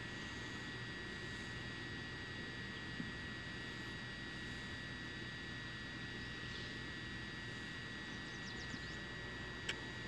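A steady high-pitched hum over a faint even hiss, with a few faint high chirps near the end and a couple of small ticks.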